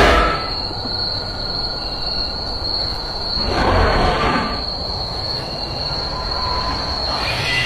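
Eerie horror sound design: a steady high-pitched ringing tone with two loud screeching swells, one at the start and another about four seconds in.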